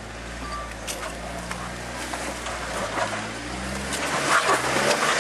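Jeep Wrangler JK's 3.8-litre V6 engine running at low revs as it crawls over rock, its pitch rising and falling with the throttle. A crackle of short clicks and scrapes builds and grows louder over the last second or so.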